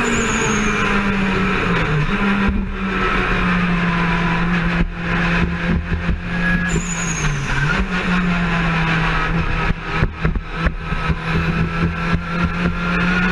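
Turbocharged 16-valve four-cylinder engine of a mid-engined Golf Mk2 race car running at a steady speed, its note dipping briefly twice, with a run of short clicks in the second half.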